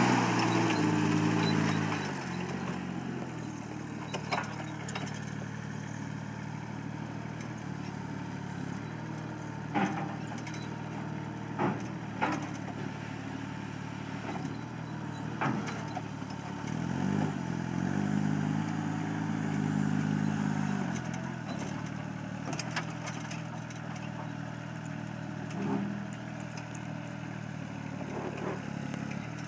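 Truck-mounted piggyback forklift's engine running, revving up and back down near the start and again about two-thirds of the way through. A few sharp clanks are heard in between.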